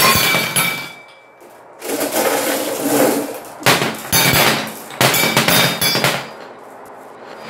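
Glass marbles dropped by the handful, clattering on a hard board and clinking into a metal cup in several quick rattling bursts, the first leaving a short ringing ding. Between the drops, a softer rumble of marbles rolling.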